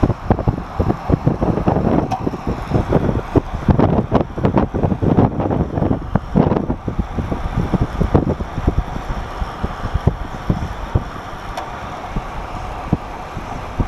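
Wind buffeting the microphone of a Garmin VIRB action camera filming from a moving vehicle, with road noise underneath: gusty, irregular thumps that settle into a steadier rush about halfway through.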